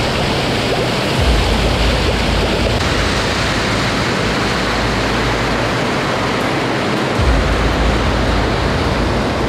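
Steady heavy rush of rain and running water, with a low rumble that comes and goes.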